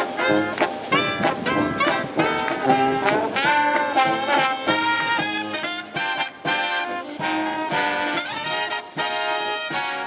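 Small marching brass band playing live: saxophone, trumpets, trombone and sousaphone over snare drum. It plays short punchy chords at first, then longer held notes from about a third of the way in.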